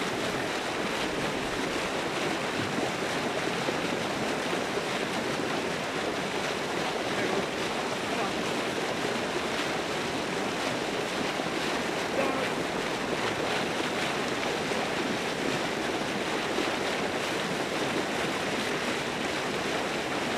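Steady rushing of churning, splashing water, an even noise with no breaks.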